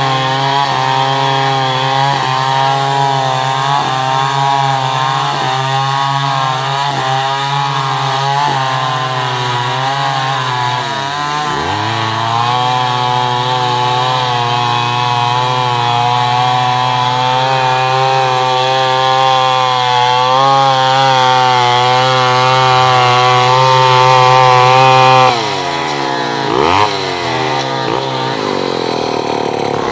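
Chainsaw running at high revs under load, its pitch wavering as it saws through wood. The revs dip briefly about eleven seconds in. Near the end the throttle is released and the engine falls to a lower speed, with a quick blip of revs.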